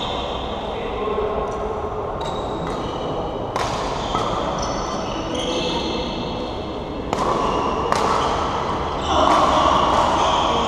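A badminton rally on an indoor hall court: a few sharp racket smacks on the shuttlecock and short high squeaks of court shoes on the floor, with voices from other courts in the background.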